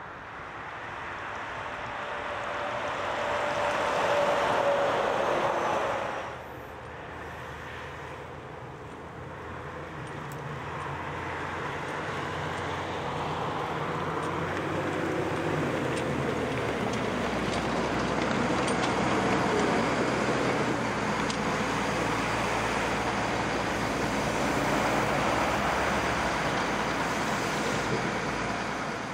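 Road traffic at a roadworks: a vehicle goes by, swelling and then dropping away about six seconds in, then a steady engine sound with a low hum builds and holds as more heavy traffic passes.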